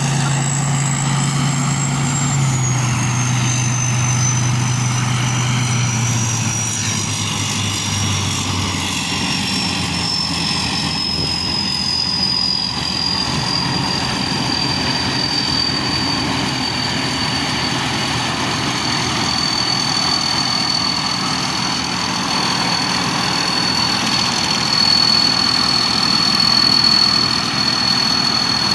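Chao Phayu rice combine harvester running steadily, with a high whine from its machinery that slowly falls in pitch and a low engine hum that drops in pitch and fades over the first several seconds.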